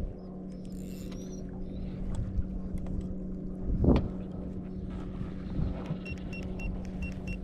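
Bow-mounted electric trolling motor humming steadily while it holds the boat in anchor-lock. There is a single thump about four seconds in, and a quick run of short, high electronic beeps near the end.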